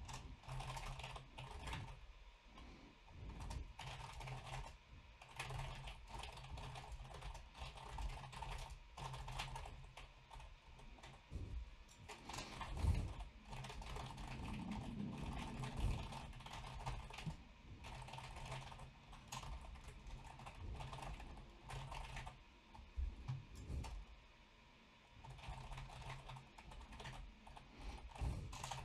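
Computer keyboard typing: faint, irregular runs of key clicks with short pauses, a brief lull about 24 seconds in.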